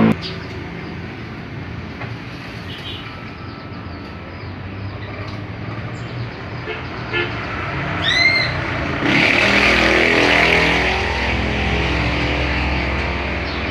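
An engine running steadily, with a single short chirp about eight seconds in and a hiss that comes in about a second later.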